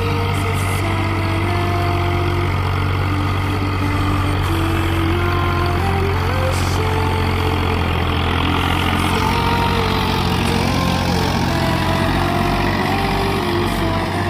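Ford 3620 tractor's three-cylinder diesel engine running steadily under load as it pulls a spring-tine cultivator through hard ground.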